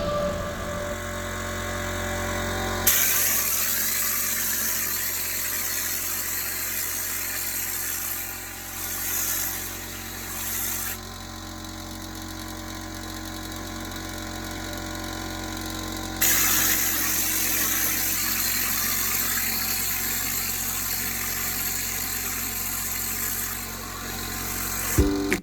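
Cement-spraying rig running: a steady motor hum with a loud hiss of air and sprayed mortar that starts about three seconds in, stops for several seconds midway, then resumes until just before the end.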